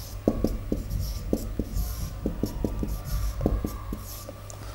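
Marker pen writing on a whiteboard: a quick, irregular series of short strokes and taps as words are written.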